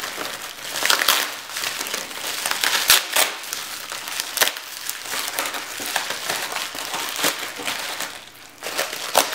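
Plastic bubble wrap crinkling and rustling as it is unwrapped by hand, with sharp crackles all through.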